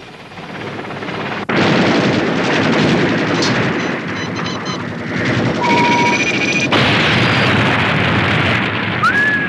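Animated battle sound effects: a dense, continuous din of explosions and gunfire that builds over the first second and a half and stays loud. A couple of short electronic tones sound in the middle, and a brief rising tone comes near the end.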